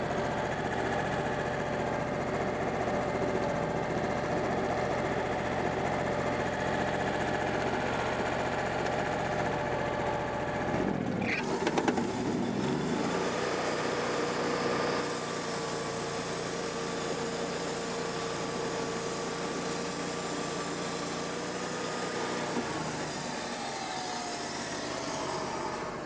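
Wood-Mizer portable band sawmill running, its engine driving the band blade through a red oak log with a steady note. About eleven seconds in the engine pitch rises as the blade clears the end of the log, and near the end the pitch falls away as the engine slows down.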